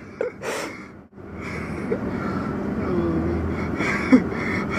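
Steady engine and road noise of a car driving, with a short breathy rush about half a second in.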